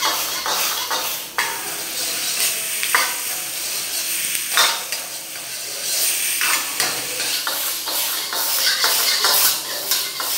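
Stir-frying in a wok over a gas burner: food sizzling steadily while a metal ladle scrapes and knocks against the wok at irregular intervals.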